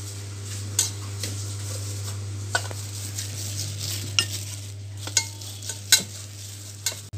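Wooden rolling pin rolling out a small wheat-dough puri inside a polythene sheet on a steel plate: plastic rustling and a few sharp clicks of pin and plate, over a steady low hum.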